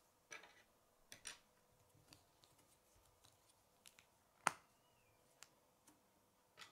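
Plastic K'nex rods and connectors clicking as they are handled and fitted together: a scatter of faint clicks, with one sharp snap about four and a half seconds in.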